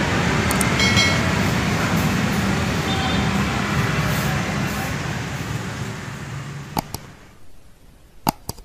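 Steady street traffic noise that fades out over a couple of seconds, followed by a few sharp clicks near the end.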